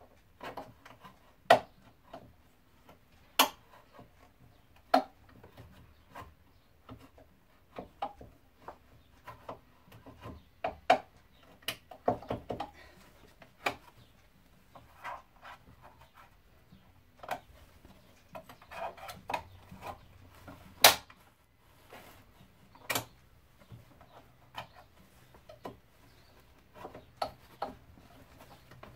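Scattered sharp clicks and knocks, with rustling and handling noises between, from hand work on the parts inside a stripped car door's window regulator area.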